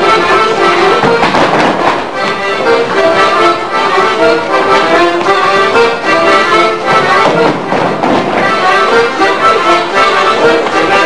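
Accordion playing a lively traditional folk dance tune, with quick running notes and no pauses.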